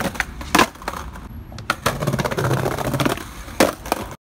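Skateboard wheels rolling over brick pavers with a fast, rattling clatter, broken by three sharp clacks of the board hitting the bricks: about half a second in, just before two seconds, and near the end. The sound cuts off abruptly.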